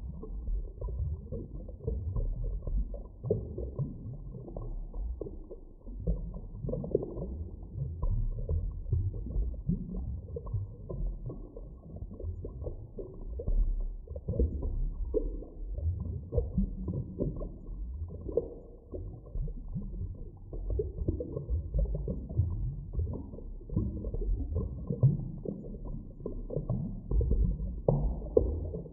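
Deep, muffled underwater ambience: a steady low rumble full of irregular gurgles and crackles, with no highs at all.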